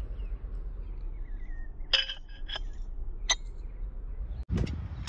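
Stainless steel D shackles clinking as they are handled: a few short, bright metal clicks about two to three seconds in, over a low rumble of wind on the microphone.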